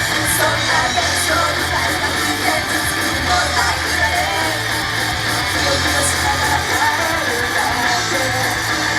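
Loud live rock-style idol-pop music with guitar over a steady low beat, played over a club PA and recorded from the audience.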